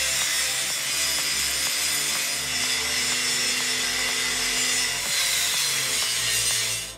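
Angle grinder with a cut-off disc cutting through a thick metal tube, running steadily under load with a harsh, even grinding noise that stops suddenly near the end.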